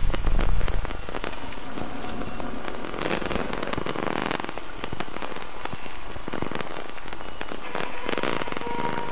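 Dense, even crackling and hissing noise, with a deep rumble in the first second.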